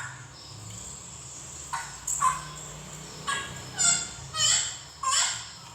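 Bird calls in the background: a short harsh call with many overtones, repeated about six times, over a faint low steady hum.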